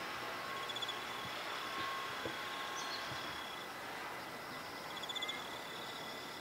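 Insects chirping in steady high trills, with short rapid-pulsed bursts about a second in and again about five seconds in, over an even outdoor hiss.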